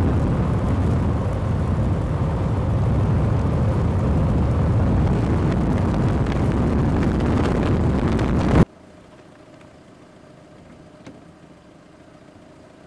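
Loud, steady rushing of strong wind buffeting the microphone, cutting off abruptly about eight and a half seconds in and leaving only a faint steady hiss.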